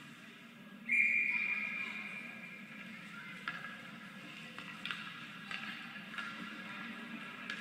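Referee's whistle blown once about a second in, a single steady high note that fades over a second or so, signalling the start of a penalty shot. A few faint clicks follow over a steady low hum of the rink.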